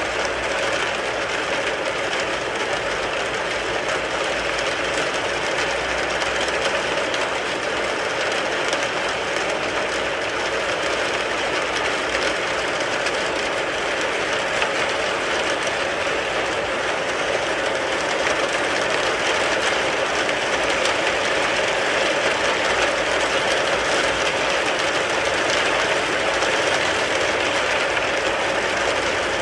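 Steady rain falling on a car's roof and body, a dense, even patter of drops that grows slightly heavier in the last third.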